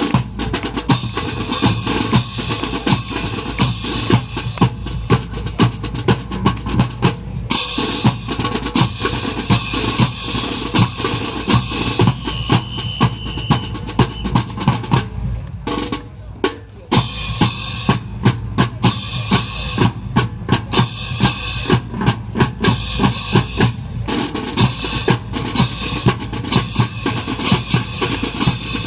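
Drum-kit music with snare and bass drum keeping a steady, driving beat. It breaks off briefly about halfway through, then starts again.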